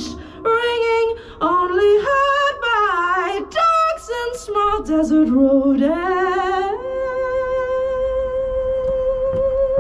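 A woman singing unaccompanied, improvised melodic phrases whose pitch slides up and down. About seven seconds in she settles into one long, steady held note.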